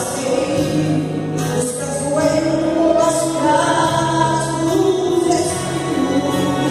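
A woman singing a Portuguese gospel song over a backing track of music.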